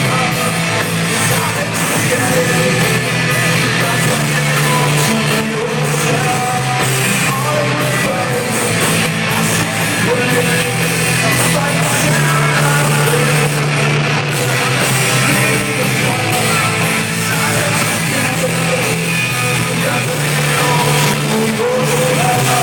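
Alternative rock band playing a song live, loud and continuous, with singing over the band. It is heard from the audience and has little deep bass.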